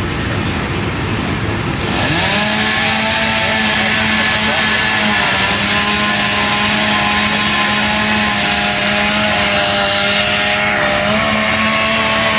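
Small high-revving engine of a power saw revving up about two seconds in and held at full throttle, with a hissing cutting noise; it sags briefly twice, as if bogging under load in the cut.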